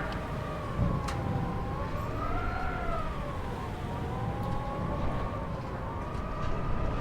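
Wind howling: several whistling tones slowly rise and fall in pitch together over a low, rumbling gust noise.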